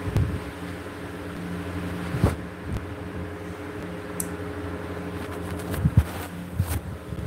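A steady low electrical hum with several even tones, like a running fan motor. Over it the phone is handled, with short knocks and rubs on the microphone, the sharpest about two seconds in and near six seconds.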